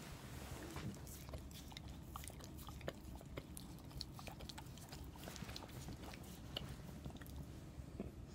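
Dog licking a person's mouth and chin close up: a string of soft, irregular licking clicks and smacks.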